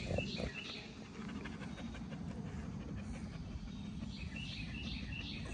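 Bully dog panting steadily in quick, even breaths, with high chirping in the background near the start and near the end.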